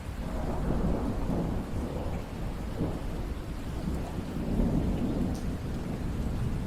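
Steady rain with a long rolling rumble of thunder that builds just as the rain sound begins to swell and surges twice, about a second in and again past the middle.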